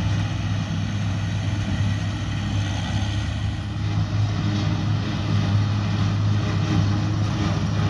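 Steady diesel engine drone of a self-propelled forage harvester and a tractor with trailer cutting silage, running at a constant pitch with a strong low hum.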